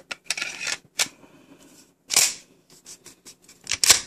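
Clicks and scrapes of a field-stripped Glock 20's slide and recoil spring assembly being handled and slid onto its frame. It is a string of short clicks with a few brief scraping sounds, the loudest clacks near the end.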